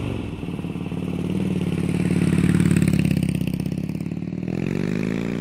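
Harley-Davidson Road King Custom's 96-cubic-inch Twin Cam V-twin running through Rinehart True Dual exhaust with an even pulse, then revving up near the end, its pitch rising.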